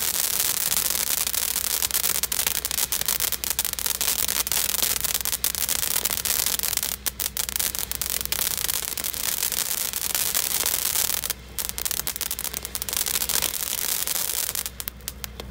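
Ground firework fountain spraying sparks with a loud, steady hiss, which falters briefly about eleven seconds in and dies away near the end as the fountain burns out.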